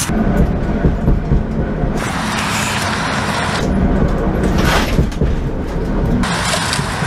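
Subaru Legacy wagon rolling with its engine off: a steady low rumble of tyres on the road with scattered rattles from the stripped-out body.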